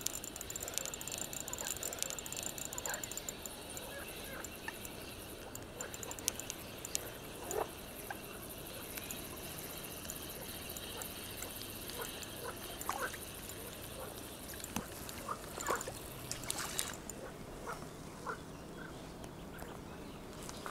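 Spinning reel being cranked to retrieve a lure, with birds chirping now and then and a steady high insect hum that fades about three-quarters of the way through.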